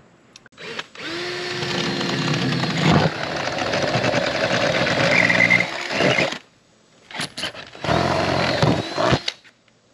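Cordless drill boring pilot holes through the trailer's metal rear door: one long run of about five seconds, a short pause with a couple of clicks, then a second run of about a second.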